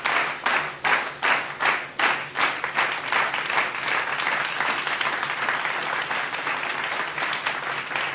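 Recorded audience applause. Distinct sharp claps stand out for the first two seconds or so, then blend into a steady, even applause.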